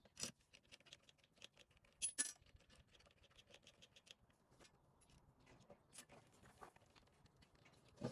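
Light metallic clicks and clinks of small parts being handled during the air compressor repair. The loudest is a pair of sharp clinks with a brief high ring about two seconds in, with fainter scattered ticks around them.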